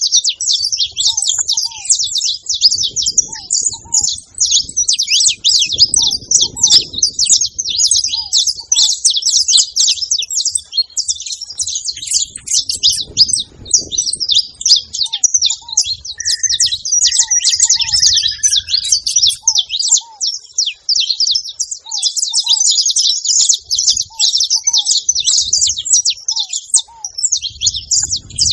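Several saffron finches chirping and singing together in a dense, continuous chatter.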